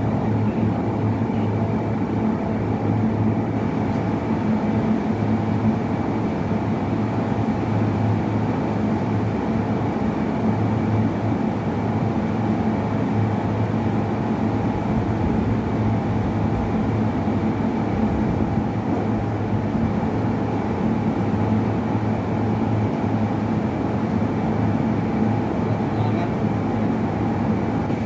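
Steady machine drone: a low hum with a faint high whine above it.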